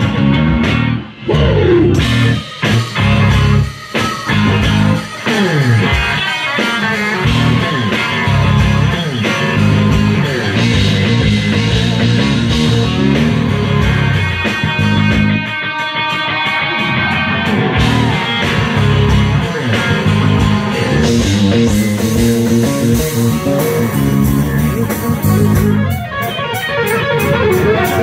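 Electric guitar soloing live in a blues-rock style, full of bent and sliding notes, over a band, with a few short stops in the first seconds.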